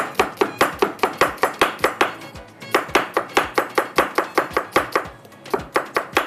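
Kitchen knife slicing an onion on a wooden chopping board: quick, even chops at about five a second, in three runs with two short pauses.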